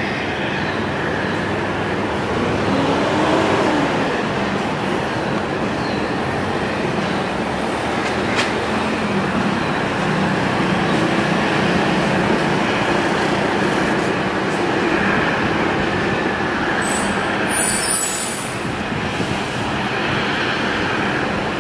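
Jet airliner engines running, a loud, even rush with faint tones that slide up and down in pitch as the aircraft moves past. There is a brief crackle near the end.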